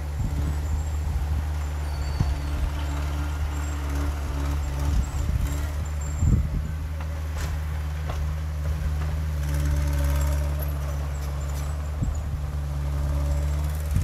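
Small crawler bulldozer's diesel engine running steadily as it pushes dirt, with a few short knocks.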